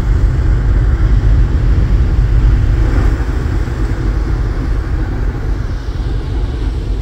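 Wind buffeting the microphone on an open ferry deck, a loud, fluttering low rumble that eases slightly after the middle.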